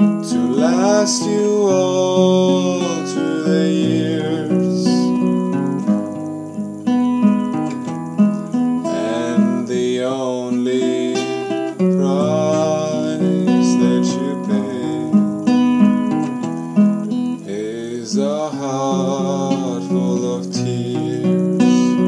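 Acoustic guitar played as a slow chord accompaniment, picked and strummed, with each chord ringing into the next.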